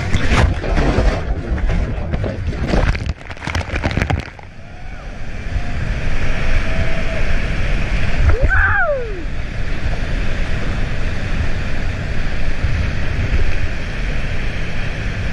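Whitewater of a waterfall rushing right at a kayaker's helmet camera: hard splashing and water pounding on the microphone for about the first four seconds, then a steady roar of fast water. A short falling tone sounds about halfway through.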